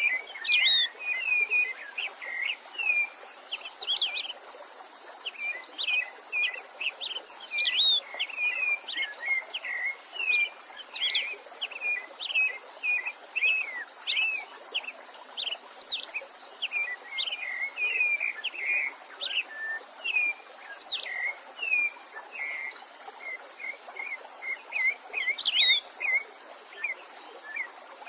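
Songbirds singing: a rapid, unbroken stream of short chirps and quick whistled glides, over a steady background hiss.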